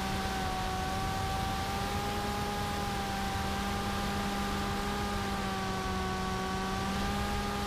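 Electric motor and propeller of a TBS Caipirinha flying wing, heard from the onboard camera: a steady whine whose pitch wavers slightly with throttle, over a hiss of rushing air.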